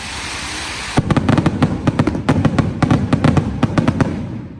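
Kwiton fireworks barrage going off. A steady hiss for about the first second, then a fast string of sharp bangs, several a second, for about three seconds, trailing off near the end.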